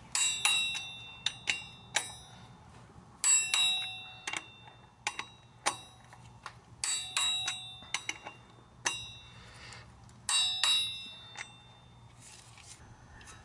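A wrench tightening the flywheel bolts to their final torque: sharp metallic clicks, each with a short bright ring, in small clusters every second or so.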